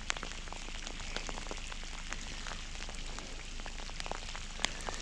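Steady rain hiss with many scattered sharp ticks of drops striking close by.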